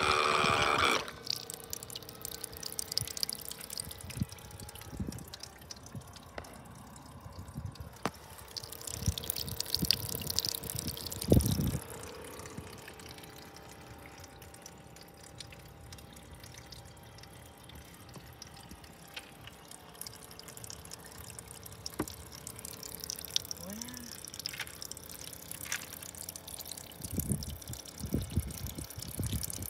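Battery-powered electric faucet pump draining water from a cooler. It gives a loud whine for about a second as it switches on, then water trickles and drips through its hose, with scattered handling clicks and a thump.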